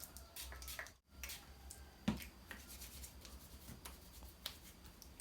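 Faint handling sounds: scattered clicks and rubbing of hands working with small objects, with one sharper click about two seconds in, over a low steady hum. The sound drops out completely for a moment about a second in.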